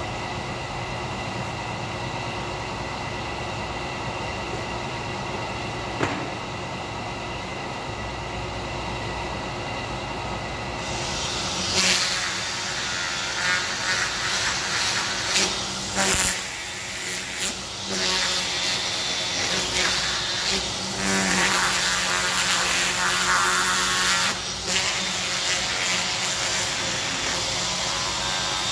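A steady mechanical hum, then, about 11 seconds in, a small handheld power grinder starts sanding the hollow of a pine slab. Its loud hissing grind swells and drops repeatedly as it is pressed into the wood and eased off.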